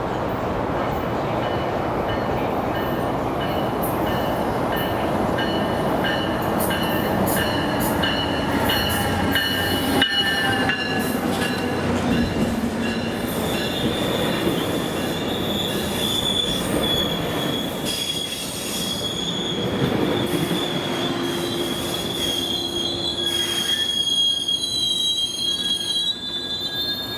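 Train running on the rails with a high, steady metal squeal from its wheels; the squeal steps higher in pitch about halfway through. The rumble of the train is strongest in the first half and eases after.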